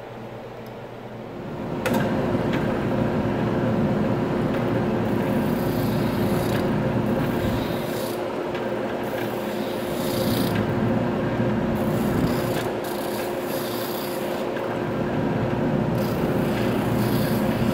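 Oscillating spindle sander running with a steady motor hum, its drum sanding a wooden knife handle pressed against it; the rasping swells and eases as the wood is pushed on and drawn back. It starts suddenly about two seconds in, after a quieter steady hum.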